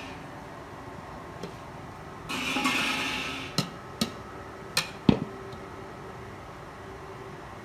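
Stir-frying in an aluminium wok: a second-long burst of sizzling a little over two seconds in, then four sharp knocks of the metal ladle against the wok.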